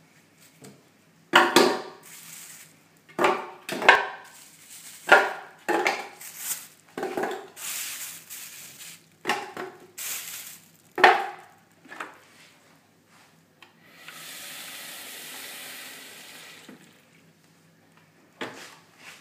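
Frozen banana chunks knocking one after another into an empty plastic blender jug, about ten hard knocks, with the crinkle of cling film as the pieces are unwrapped.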